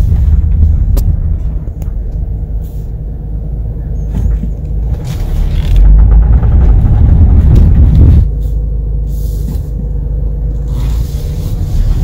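Front-wheel-drive car pulling away while turning, heard from inside the cabin: a low engine and road rumble, loudest for a couple of seconds in the middle, with a few sharp clicks scattered through it. The clicks are the popping of a worn outer CV axle joint, whose degraded balls click under load as the joint turns.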